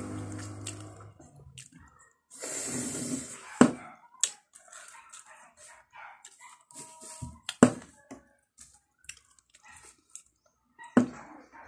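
Close-up eating sounds: wet lip smacks and mouth clicks while biting into and sucking a soft snack, with a short noisy stretch about two and a half seconds in and three sharper smacks spread through.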